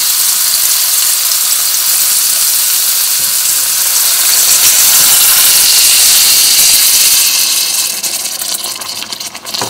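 Broth poured into a hot enamelled cast-iron pot of oil-browned cabbage rolls, hissing and sizzling loudly as it hits the hot oil and flashes to steam. The hiss swells to its loudest around the middle, then dies down about eight seconds in to a scattered crackle.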